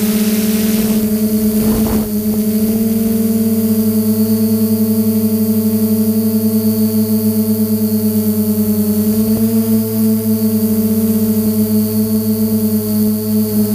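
DJI F550 hexacopter's electric motors and propellers droning with a steady buzzing hum, as picked up by the camera on the craft, with a hiss over it. There is a short crackle about two seconds in, and the pitch rises slightly around nine to ten seconds in as the motor speed changes.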